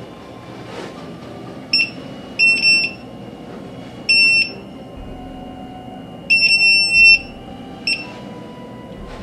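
Handheld hidden-camera and RF bug detector beeping in irregular, high-pitched bursts, about six beeps with one long beep near the end, as it picks up a wireless signal.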